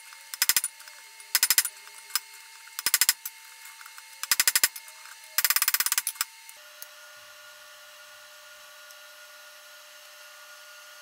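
Hammer blows on the top die of a blacksmith's guillotine fullering tool, driving it into a hot steel bar to fuller both sides at once: five short bursts of rapid, ringing metal strikes. About six and a half seconds in the strikes stop, leaving only a faint steady hum.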